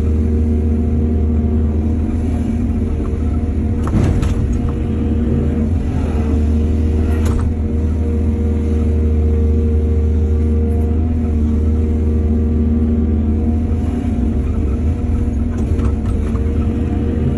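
Excavator's diesel engine running steadily with a deep, even hum, with two sharp knocks about four and seven seconds in.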